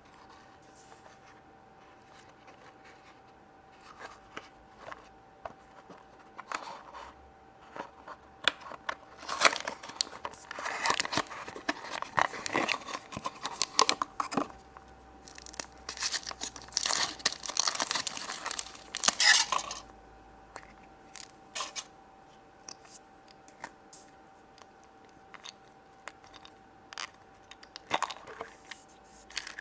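Chocolate egg wrappers being torn and crinkled open by hand, with scattered small rustles and clicks, then a long stretch of dense crinkling and tearing in the middle.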